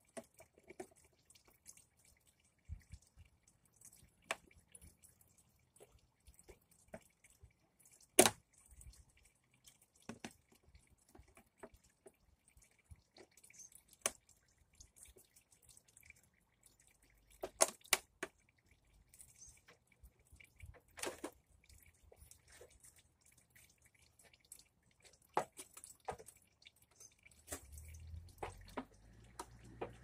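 Sparse sharp clicks and taps at irregular intervals, a few of them louder, with a faint low rumble near the end.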